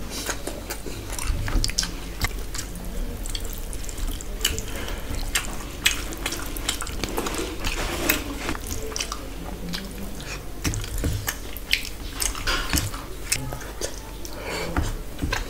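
Wet, smacking sounds of eating by hand: fingers squishing rice into curry gravy on a steel plate, and chewing with the mouth open, as many small clicks and crackles throughout.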